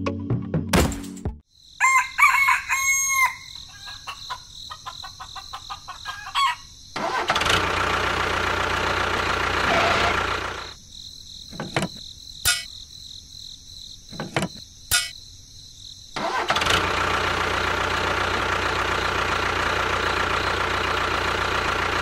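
A small motor starts about seven seconds in, runs steadily, cuts out after about three seconds, then starts again about sixteen seconds in and runs steadily. A few short pitched calls come earlier, about two seconds in.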